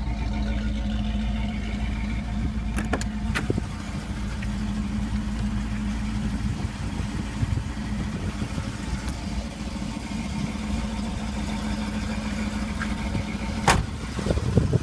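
Pontiac 400 four-barrel V8 (6.6 L) of a 1976 Trans Am idling steadily. Sharp clicks about three seconds in and a louder one near the end.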